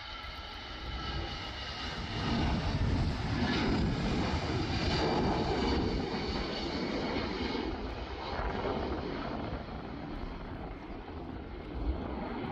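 Twin-engine Airbus A320-family jet airliner taking off: jet engines at takeoff thrust, a whine that swells into a loud roar about two seconds in as the plane rolls and lifts off, then eases off a little as it climbs away.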